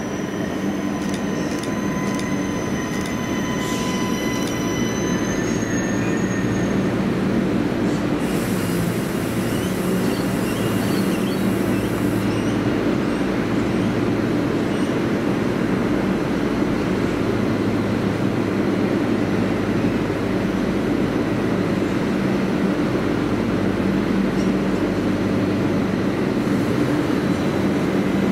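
3000 class diesel railcar coming to a stop at a platform, its wheels or brakes squealing high for the first several seconds as it slows. There is a brief hiss of air about eight seconds in, then the diesel engine idles steadily while the railcar stands.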